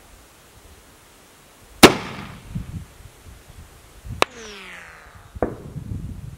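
Mosin-Nagant rifle shots fired from about three-quarters of a mile away, heard down range near the target: a sharp crack about two seconds in, the loudest, then another crack followed by a falling whine about a second long, then a third crack.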